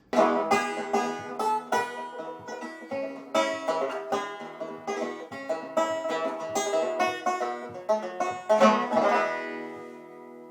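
Background music: a fast, rapidly picked banjo tune that starts suddenly, ends in a strummed flourish and a ringing chord that fades out near the end.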